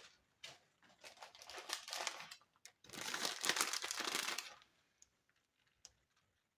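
Plastic packaging crinkling in two rustling bursts, the second the louder, as more cheese is added to the lasagna layers.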